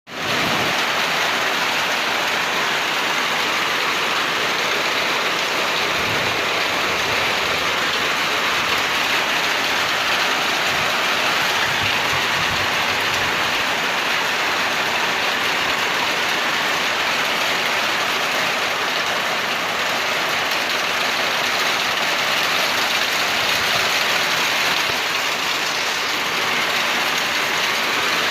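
Heavy rain falling steadily, a loud, even hiss of drops with no letup.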